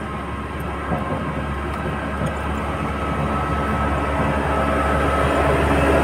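Diesel engine of a HAMM single-drum road roller running steadily, growing gradually louder as the roller approaches and passes close by.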